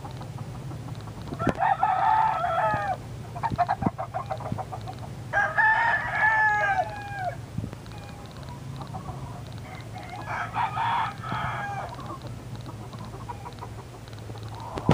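Roosters crowing, three long crows in turn, about a second and a half to two seconds each, the first about a second and a half in, the next about five seconds in, the last about ten seconds in. Between the first two crows comes a quick run of rapid clucks, with a low steady hum underneath throughout.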